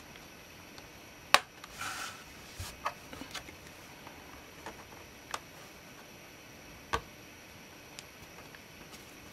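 Scattered sharp clicks and taps of hands working on a laptop and its parts, with a brief rustle about two seconds in. The loudest click comes about a second and a half in.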